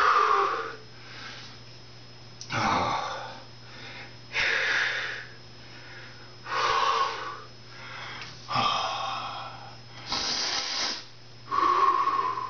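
A man breathing hard and loudly, about seven heavy, wheezy exhales one every couple of seconds, as he recovers from a set of push-ups.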